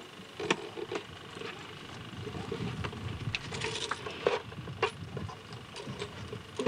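Scattered clicks, knocks and rustles of hands handling a wooden stringed instrument, its strings and bridge, with plucked notes starting right at the end.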